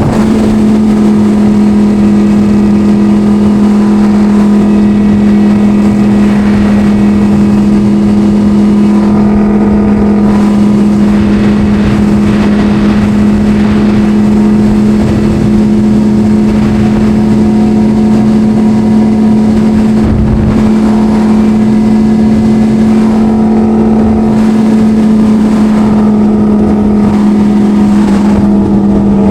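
Sport motorcycle engine running at steady, nearly constant revs while riding, a loud, even engine note with no shifts or revving.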